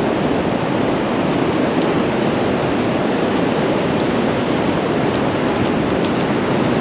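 Steady rush of sea surf breaking on a sandy beach, mixed with wind, with no change in level throughout.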